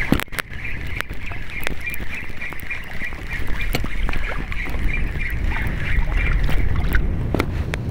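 Small spinning reel being cranked to retrieve a lure, a rhythmic whirr at about four pulses a second that stops about six and a half seconds in, with wind rumbling on the microphone and scattered clicks from handling the rod.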